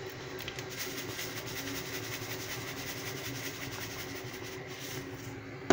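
Water just starting to boil in a stainless steel pot on a gas burner: a steady rushing hiss with a low hum, as a thin stream of salt is poured into the water. A short knock right at the end.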